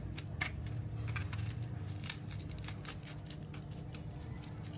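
Kitchen knife cutting through raw green jackfruit, a quick irregular run of small crisp cuts and clicks as the blade works through the spiky rind and fibrous flesh.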